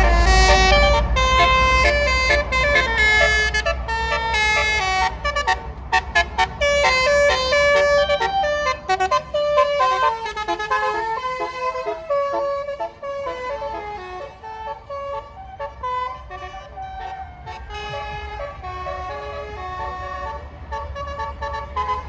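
Bus 'telolet' Basuri musical air horn playing a tune of quick stepped notes, louder in the first half and softer later, over a deep bus engine rumble that fades in the first second or so.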